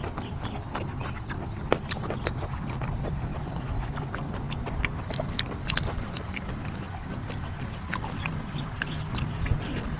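Close-up wet chewing and lip-smacking of raw shrimp in spicy chili sauce: a run of irregular sharp mouth clicks over a low rumble.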